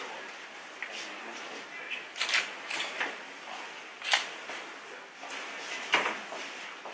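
Camera shutter clicks: a few sharp clicks, the loudest about two seconds apart.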